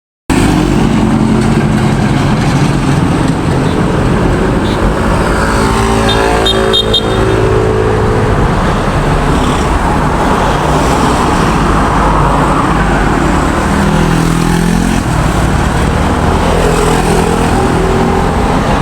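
Road traffic: car and other vehicle engines running and passing close by, steady and loud throughout. A short cluster of high beeps sounds about six seconds in.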